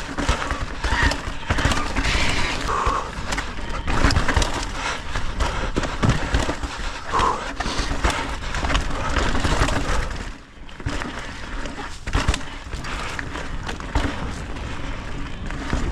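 Full-suspension mountain bike ridden fast down a rough dirt trail: knobby tyres rumbling over the ground with frequent knocks and clatters from the bike, easing off briefly about ten seconds in.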